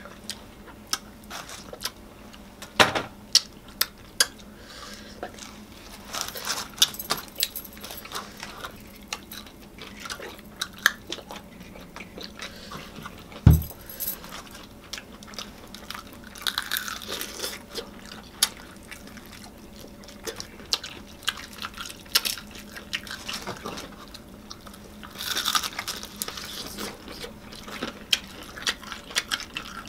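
Close-miked eating: crisp fried chicken being pulled apart and chewed, with scattered crackles and clicks and some light jingling of metal bangles and rings. A single heavy thump about halfway through.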